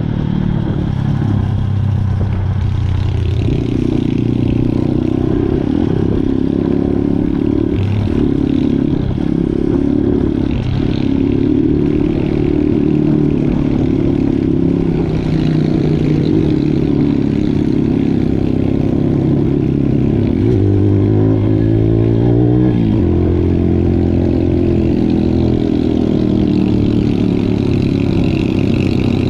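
Viar 150 SF R pitbike's single-cylinder four-stroke engine running under way on a rough trail, the revs rising and falling, with a long climb in revs about twenty seconds in that drops off sharply. The bike rattles over the bumpy ground.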